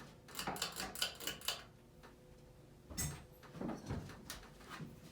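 Hunter Infiniti ceiling fan running on medium speed with a steady motor hum, which has some bearing noise, though nothing too bad. Short light clicks and rattles come in a quick run about half a second in and again about three seconds in.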